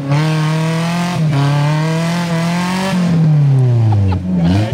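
Modified off-road 4x4's engine revving hard as it climbs a steep loose-dirt slope with its wheels spinning in the soil. The revs are held high for about three seconds, then drop, pick up briefly and drop again near the end.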